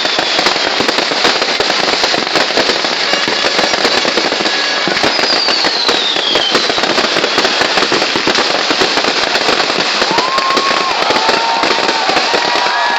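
Fireworks going off in a dense, unbroken barrage of rapid bangs and crackles. A falling whistle comes about five seconds in, and several short whistling tones near the end.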